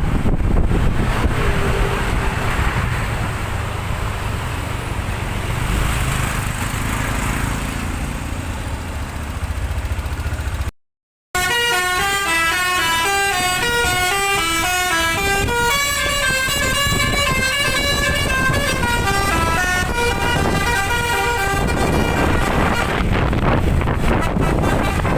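Vehicle and road noise, then, after a short break, a bus's telolet (basuri) musical air horn plays a tune of quickly stepping notes for about ten seconds before road noise returns.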